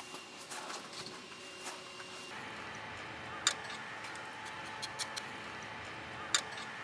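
Two sharp clicks about three seconds apart and a few fainter ticks over a steady low hiss.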